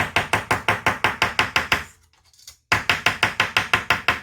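Small hammer tapping rapidly and evenly, about six or seven blows a second, flattening the edges of a homemade screen-protection shield. The tapping pauses for under a second about two seconds in, then resumes.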